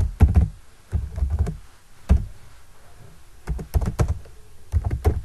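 Typing on a computer keyboard: short bursts of key clicks with brief pauses between.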